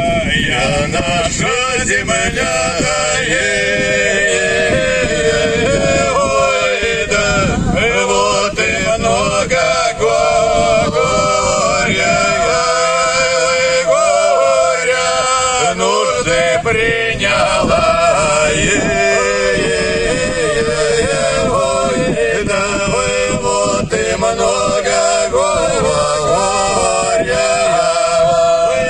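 Background music: a Russian song sung by male voices.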